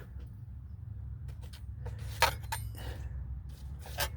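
Metal engine oil dipstick being handled and drawn out of its tube, giving a few scattered light clicks and knocks over a steady low hum.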